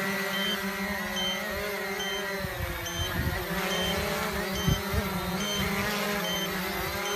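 Quanum Nova (Cheerson CX-20) quadcopter in flight, its brushless motors and propellers giving a steady buzzing drone whose pitch wavers as the motors adjust. A short high beep repeats about every second throughout, and a few low thumps come near the middle.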